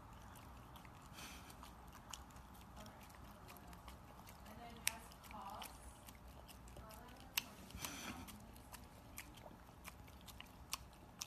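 An English bulldog puppy quietly chewing a crumbly treat, with wet mouth sounds and a few sharp clicks and crunches now and then.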